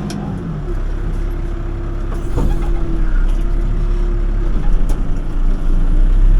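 Backhoe loader's diesel engine running, heard from the operator's seat, a steady low rumble with a steady hum over it. It grows louder about two seconds in and again near the end as the machine is driven forward, with a single knock partway through.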